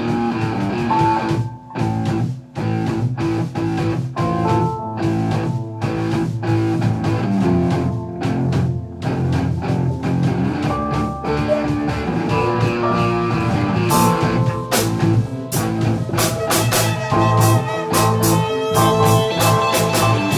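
Instrumental jam music: guitar playing over a drum kit, the pitched instruments coming in on top of the drums at the start, with the cymbal strikes growing busier about two-thirds of the way through.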